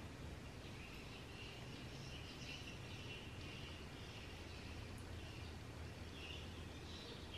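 Quiet background with a steady low hum and faint high chirping in two stretches, starting about a second in and again near the end.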